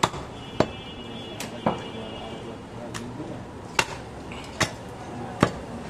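A heavy butcher's knife chopping goat meat on a wooden log chopping block: about eight sharp chops at an uneven pace.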